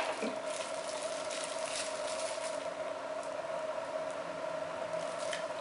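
A steady mid-pitched electrical hum, with a few faint rustles and ticks of small packaging being handled.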